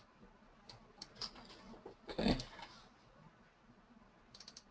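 Faint computer mouse clicks, a few scattered ones in the first second or so and a quick run of clicks near the end, with a brief louder rush of noise about two seconds in.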